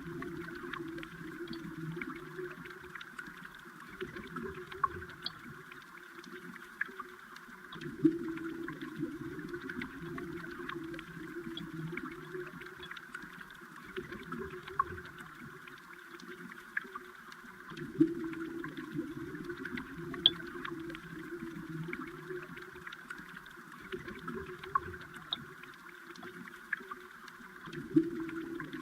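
Moving water heard underwater: a steady murmur of flow with many scattered small clicks and ticks, swelling in brief surges about every ten seconds.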